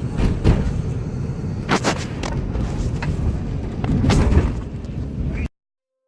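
A car crashing: a loud rumble broken by three heavy bangs, about half a second, two seconds and four seconds in. It cuts off abruptly near the end.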